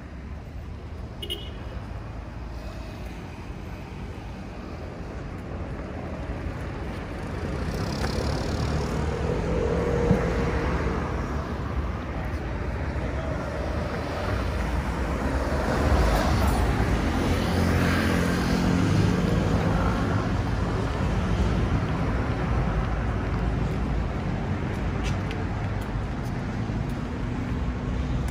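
Road traffic on a busy city street: a steady low rumble of cars passing, swelling as vehicles go by and loudest a little past the middle.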